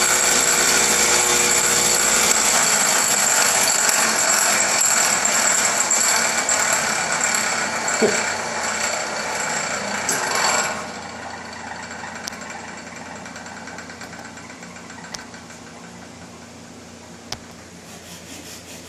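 A power tool running steadily with a high whine, shut off about eleven seconds in, leaving a fainter hum that slowly fades.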